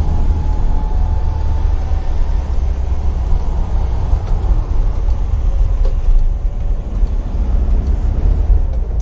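1969 Volkswagen Beetle's air-cooled flat-four engine running on the move, heard from inside the cabin as a steady low rumble with road noise.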